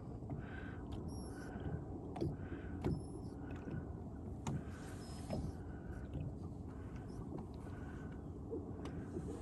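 Low steady hum on a fishing boat, with a faint short chirp repeating about every 0.7 seconds and a few light clicks.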